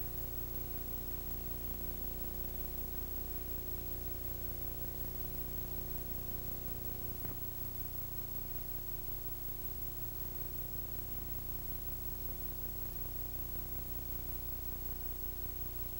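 Steady hiss with a low hum: the background noise of a many-times-copied VHS soundtrack. One faint click about seven seconds in.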